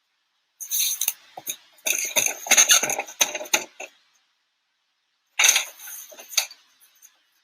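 Foley sound effect of clinking and rattling, like keys or cutlery jangling, in three bursts of quick clicks, the middle one the longest and loudest.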